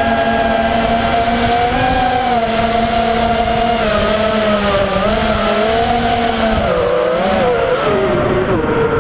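FPV quadcopter's electric motors and propellers whining, the pitch wavering with throttle changes and dipping and rising a couple of times in the second half.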